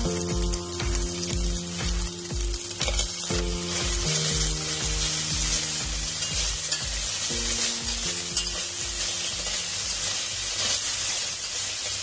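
Shredded chicken sizzling as it fries in a stainless steel pot, stirred with a metal utensil; the sizzle grows louder about four seconds in. Background music with a steady beat plays underneath.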